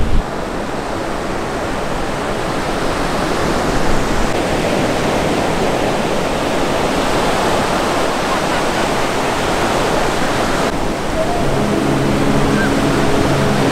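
Ocean surf breaking and washing onto a sandy beach, a steady rushing roar of whitewater. A low, steady hum joins it a couple of seconds before the end.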